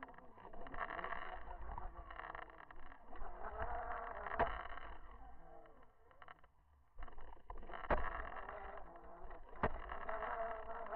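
Muffled underwater sound picked up through a camera housing on the bottom of an inlet: churning water noise with a wavering hum, broken by a few sharp knocks, the first about four seconds in. The sound drops away briefly just past the middle.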